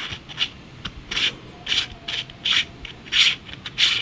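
Circular polarizer filter being screwed onto a home-made lens adapter ring on a phone case: about six short scraping rasps of the threads, one with each twist of the hand.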